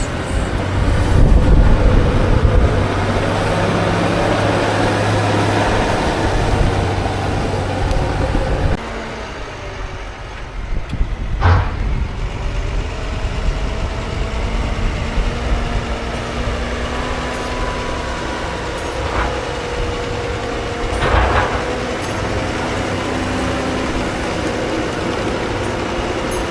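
Diesel engines of heavy farm machinery running steadily. About a third of the way in the sound drops suddenly to a quieter engine. Two short sharp noises are heard later, one near the middle and one about four-fifths of the way in.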